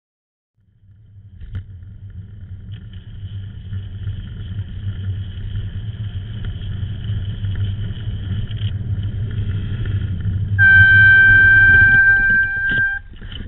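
Low, steady road and traffic rumble on a bike-mounted camera, building gradually. About ten and a half seconds in, an Air Zound bicycle air horn gives one long steady blast of about two and a half seconds, sounded as a warning to a car cutting across the bike lane, with a short knock just before it stops.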